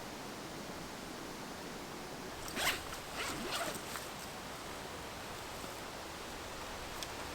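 A zipper pulled in a few quick rasping strokes about two and a half seconds in, over a steady outdoor hiss.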